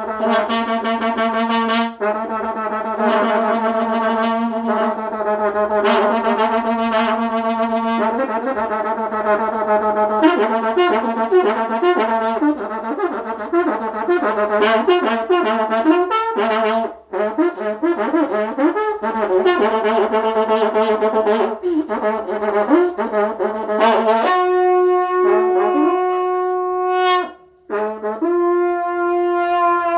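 Karnay long brass trumpets blowing loud sustained notes: a steady low drone, joined about eight seconds in by a second horn whose pitch wavers and bends over it. About twenty-four seconds in a single higher held note takes over, breaking off once briefly near the end.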